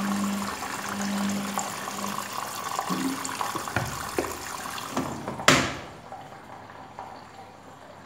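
Front-load washing machine filling: water rushes through the detergent dispenser drawer, with a low hum, at the start of a wash cycle. About five and a half seconds in, the plastic drawer is pushed shut with one sharp clack, and the water sound is quieter after that.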